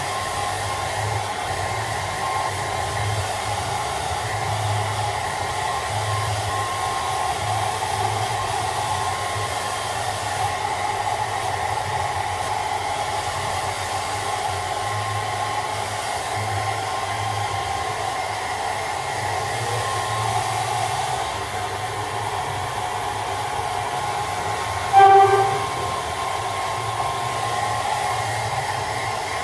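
Handheld hair dryer blowing steadily, a constant rushing noise with a humming tone in it. About 25 seconds in, a short, loud pitched tone cuts in for about half a second.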